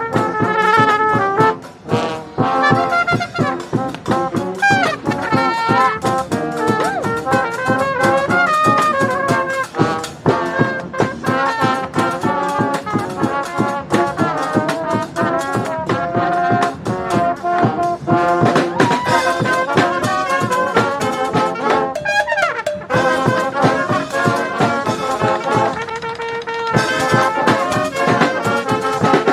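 Live brass band playing: trumpets and trombones carrying the tune over percussion hits, with a brief held note partway through.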